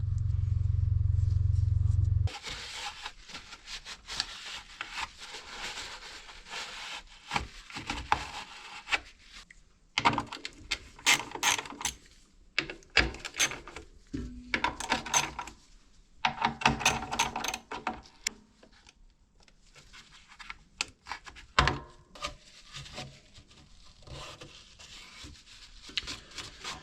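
Ratchet wrench clicking, with tools and metal and plastic parts rattling in irregular spells, as the air filter housing on a small petrol engine is undone. A steady low hum in the first two seconds cuts off abruptly.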